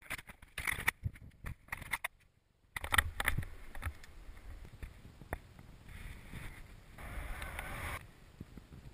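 Snowboard sliding and scraping over packed snow, with knocks and clatter from the handheld action camera in the first few seconds and a louder stretch of scraping about seven seconds in.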